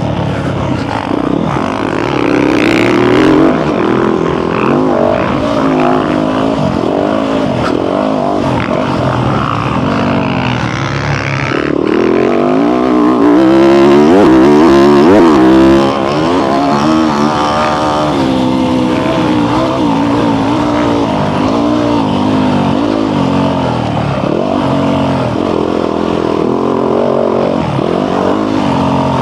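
Motocross bike engine ridden hard, its revs rising and falling with the throttle through the corners and straights. The revs climb to their highest and loudest about halfway through, then drop away.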